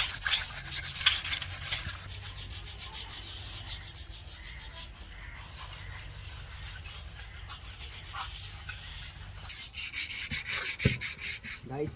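Rapid back-and-forth rubbing on a Mahindra clutch pressure plate, scrubbing it clean because the clutch plate had stuck to it. The strokes are loud for the first couple of seconds, fall to a faint steady scraping, and pick up again near the end.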